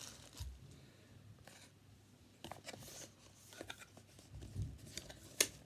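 Cardboard box being handled and turned over in the hands: scattered soft scrapes and taps, with one sharper click near the end.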